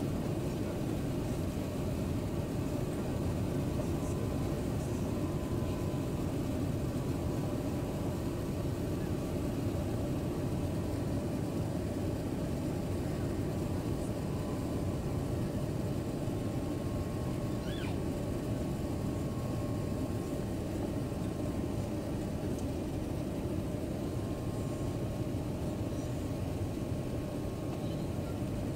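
Steady cabin noise inside an airliner on final approach: the drone of the jet engines and rushing airflow, with a faint steady high whine over it.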